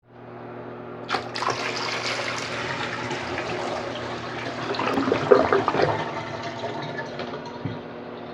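Toilet flushing: a click about a second in, then rushing water that swells to its loudest around five to six seconds and dies down toward the end.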